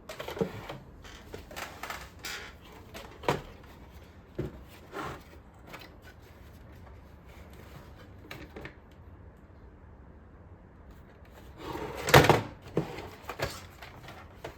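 Plastic housing of an older iRobot Roomba being pried and handled with small tools: scattered clicks, knocks and creaks of the snap-fit panel, with a louder cluster of knocks about twelve seconds in.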